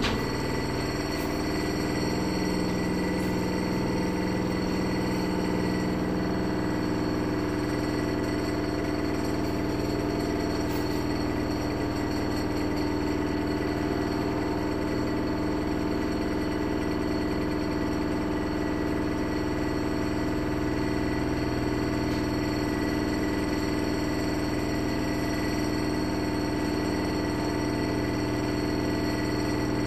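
Haier HLC1700AXS washer/dryer combo in its final spin: the drum turning at speed with a steady motor whine over a low hum.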